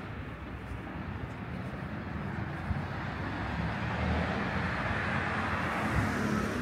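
A vehicle passing: a broad rushing noise with a low rumble that swells louder over the last few seconds.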